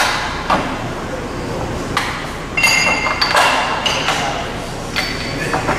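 Metal pieces clinking and knocking against the steel tooling of a sheet-metal folding machine as they are handled. A few strikes ring on briefly as high pings, the clearest a bit under three seconds in and another near the end.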